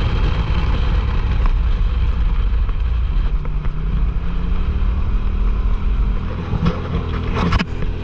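Side-by-side UTV engine running under way on a dirt road, with wind rush and tyre rumble. About halfway through the engine hum becomes clearer, and near the end there are a few knocks and rattles.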